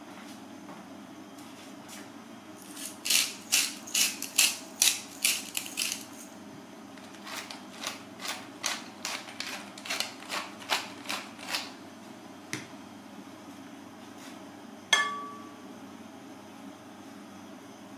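Ground spice being sprinkled from a small hand-held container over raw chicken: two runs of short rhythmic rattling strokes, about three a second, the first run louder. About fifteen seconds in comes a single sharp clink with a brief ringing tone, a hard object knocking against a plate.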